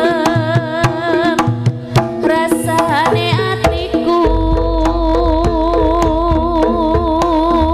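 Javanese jaranan gamelan music: kendang hand drums beating a busy pattern under a wavering, ornamented melody line, with gong strokes. A deep low gong hum comes in about four seconds in.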